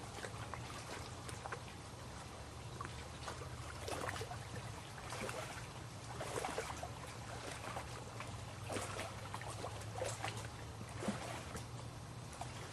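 Lake water lapping and splashing in small irregular surges every second or two, over a low steady hum.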